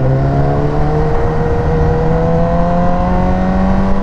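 2019 BMW S1000R's inline-four engine, fitted with an Akrapovic exhaust, pulling in gear, its pitch rising slowly and steadily as the bike gathers speed.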